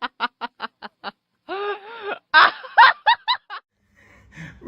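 A dog vocalizing back after being told off for barking: a quick run of short yips, then a drawn-out wavering howl-like call, then a few louder barks and another quick run of yips.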